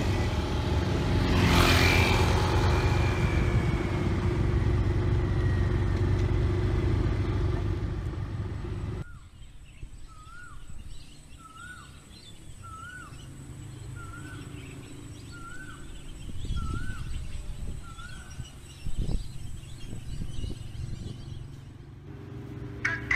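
Road traffic: a steady low rumble of motor scooters and vehicles on the road. About nine seconds in it cuts to a quieter outdoor background where a bird repeats one short up-and-down call about eight times, roughly once a second, with a few knocks near the end.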